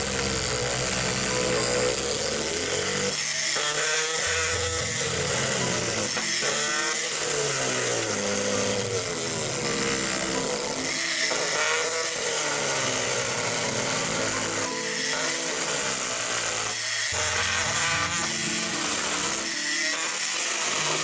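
Dremel Multi-Max MM30 oscillating tool running steadily as it cuts through a thin board, with background music playing over it.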